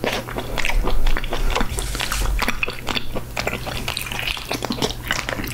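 Close-miked eating of gooseneck barnacles: a dense run of quick wet clicks and squishes as the juicy flesh is twisted from the stalk, bitten and chewed.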